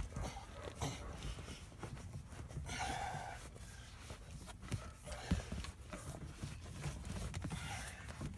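Rustling and scraping of floor carpet and a power wire being pulled up through a hole in the carpet, with scattered small knocks and handling noise. A longer scraping rustle comes about three seconds in.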